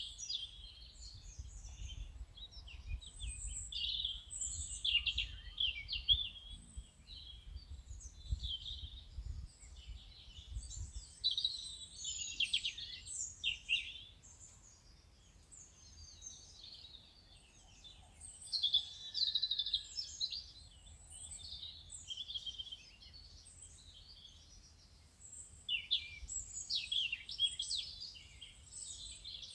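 Birds singing: a dense chorus of short chirps and trills from several birds, with a low rumble underneath that fades out about eleven seconds in.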